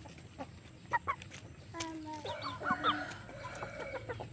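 A flock of free-range chickens clucking and calling, many short calls overlapping, busiest about two to three seconds in.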